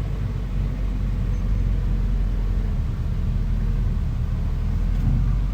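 Bulldozer's diesel engine running steadily, a low, even engine note with no breaks.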